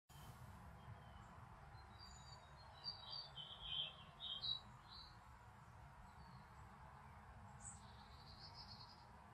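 Faint outdoor ambience of small birds chirping: a quick cluster of short high chirps a couple of seconds in and another brief call near the end, over a steady low background noise.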